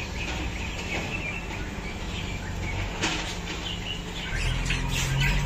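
Many small cage birds chirping and twittering together. A low steady hum comes in about four seconds in.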